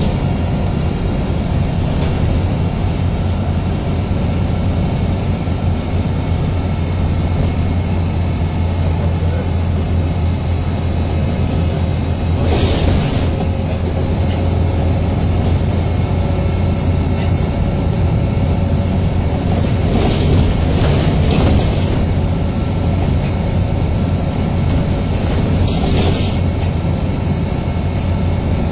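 MAN 18.220LF bus's six-cylinder diesel engine running under way, heard from inside the passenger cabin as a steady low drone with road noise. A few short, louder bursts of noise break in about halfway through and again near the end.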